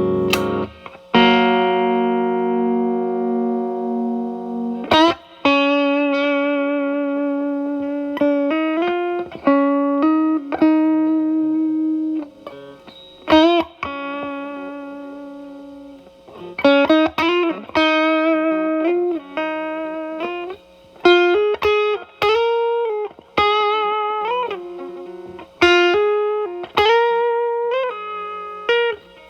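Telecaster electric guitar through an E.W.S. Brute Drive (BD-1) distortion pedal, its gain at about 10, into a Marshall Valvestate amp. A chord rings out and dies away over the first few seconds. Then comes a single-note lead line with string bends and vibrato.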